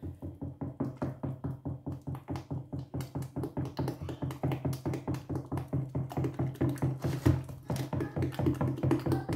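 Wooden stirring stick beating thick plantain batter in a stainless-steel pot, fast even strokes about five or six a second, each with a low knock from the pot.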